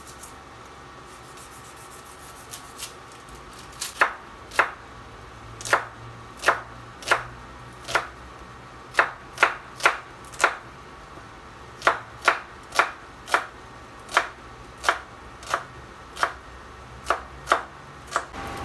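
Chef's knife slicing a red onion on a wooden cutting board: a crisp knock each time the blade meets the board. A few light cuts at first, then steady cutting at close to two a second.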